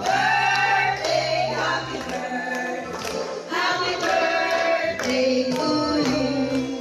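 Music with several voices singing over a steady bass line.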